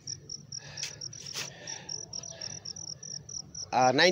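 Insect chirping in a steady high-pitched pulse, about five chirps a second, with a couple of faint knocks about a second in.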